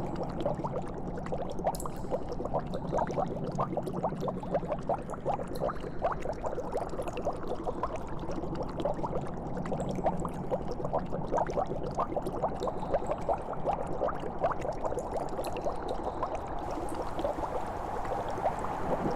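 Liquid bubbling and gurgling in a dense, steady run of small pops, over a low steady hum.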